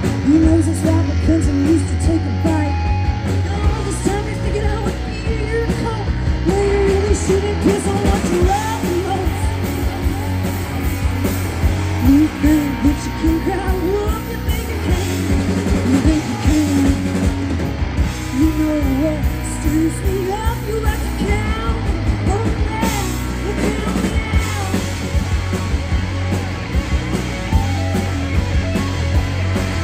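Live rock band playing through a PA: electric guitars, bass guitar and drum kit, with a woman singing.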